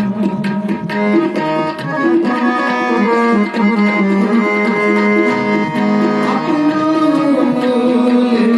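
Harmonium and tabla playing an instrumental passage in kirtan. The harmonium holds a steady drone under a moving melody, and tabla strokes sound mostly in the first second or two.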